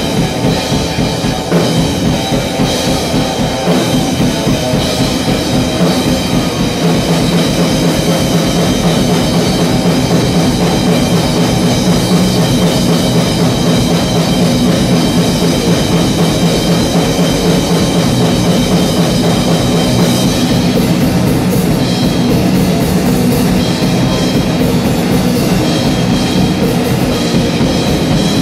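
Live instrumental heavy rock: electric guitar riffing over a drum kit, playing continuously and at a steady loudness.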